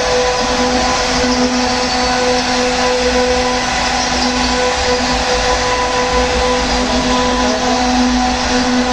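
Double-head CNC router with both spindles running and carving wooden boards: a steady whine from the spindles over the noise of the cutters in the wood.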